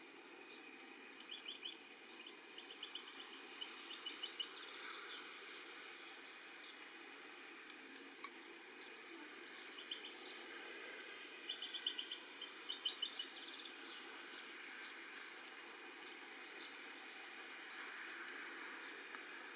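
Young goldfinches calling in quick runs of short high chirps, coming in several bursts, over a steady hiss of rain.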